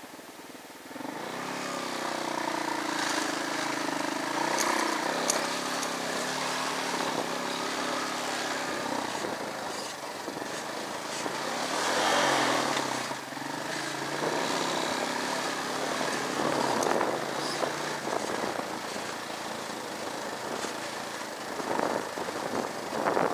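Motorcycle engine pulling away about a second in, its pitch rising, then running steadily along a rough dirt trail, with a few sharp knocks and rattles.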